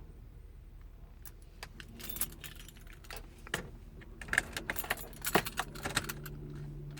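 Keys jangling and clicking on a key ring as the key is worked in the ignition of a 2014 GMC Sierra 1500, sparse at first and busier after about two seconds. No engine cranking is heard, because the truck won't start. A low steady hum comes in near the end.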